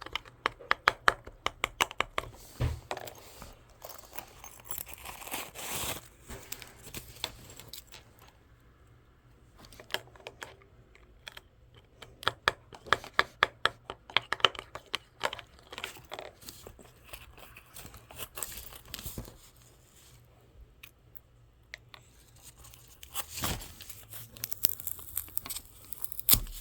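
Crinkling and rustling with rapid runs of small clicks, in bursts broken by quieter gaps, in a small room.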